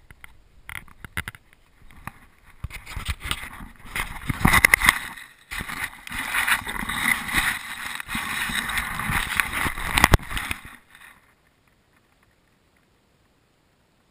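Close rubbing, scraping and knocking on a GoPro's housing as the camera is handled and set down in dry grass, irregular and loud with sharp knocks, then cutting off abruptly about eleven seconds in.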